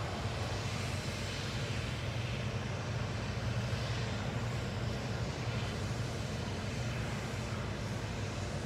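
Steady outdoor city background: a low, even rumble with a hiss over it, unchanging throughout.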